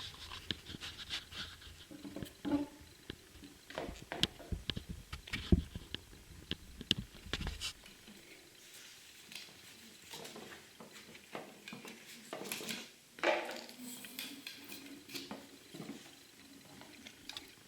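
Irregular clicks, taps and rustling as the parts and packaging of an RC helicopter are handled. There is a low rumble for about the first half, and it is quieter after that.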